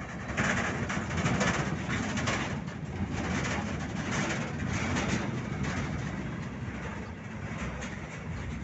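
Steel gondola freight cars rolling past close by: a steady rumble of steel wheels on rail, with a clatter that comes back about once a second and eases off after about six seconds.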